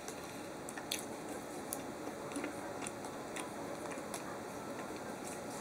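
A person quietly chewing a bite of danish doughnut, with a few faint clicks here and there.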